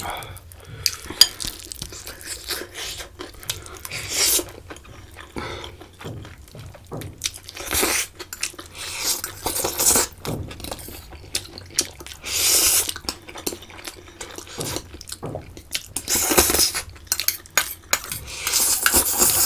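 Close-miked eating of black bean noodles: metal forks and spoons clink and scrape against stainless steel bowls, with repeated short slurps and mouth sounds about every few seconds.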